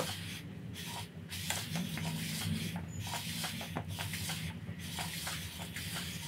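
Jeep 2.5L four-cylinder engine's crankshaft being turned over by hand, with the pistons and connecting rods moving in the bare block: an uneven scraping noise with many small clicks scattered through it and a low hum underneath.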